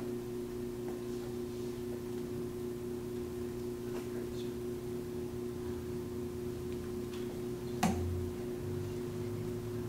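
Steady electrical hum of the quiet room, with a few faint ticks and one short sharp click-like sound shortly before the end.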